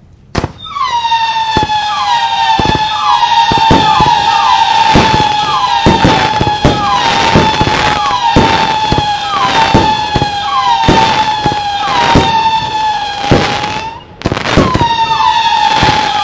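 Zena Sky High Whistle 25 mm firework cake firing whistling shots in quick succession: a near-continuous shrill whistle, a new one about every second, each starting with a short upward flick, over a string of sharp bangs from launches and bursts. A brief lull about fourteen seconds in, then the firing resumes.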